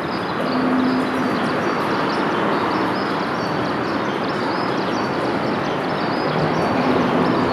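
A forest river running steadily, with a constant rush of water, and many short, high-pitched chirps over it.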